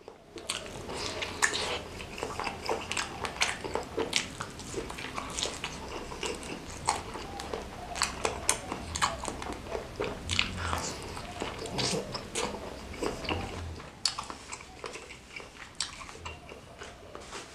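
Close-miked biting and chewing of a bakso meatball in spicy broth: wet smacking mouth sounds with many sharp clicks and crunches, quieter after about fourteen seconds.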